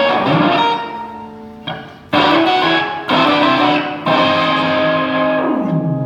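Electric guitar through a Whammy octave pitch-shift pedal, playing chords struck several times in turn, each left to ring. Near the end the pitch slides down about an octave.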